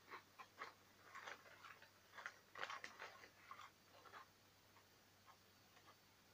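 Faint crinkling and crackling of a potato chip bag as a hand rummages inside it and pulls out a chip. A quick run of short crackles thins out to a few soft ticks after about four seconds.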